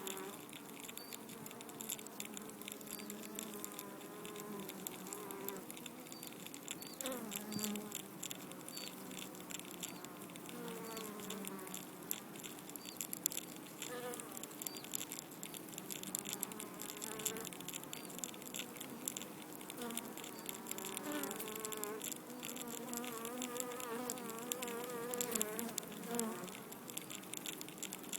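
Honeybees buzzing at a wooden hive entrance, many wavering wingbeat tones overlapping, over a dense fine crackling that the beekeeper takes for the bees chewing the wood to widen the entrance.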